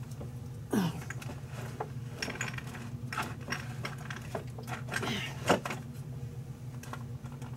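Spice jars and containers clinking and knocking as they are rummaged through: an irregular string of small taps and clicks over a steady low hum.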